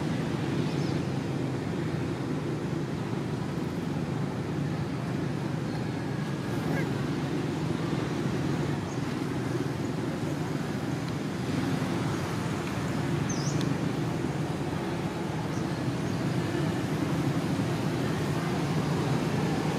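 Steady low outdoor rumble, even throughout, with a few faint high chirps about a second in and again past the middle.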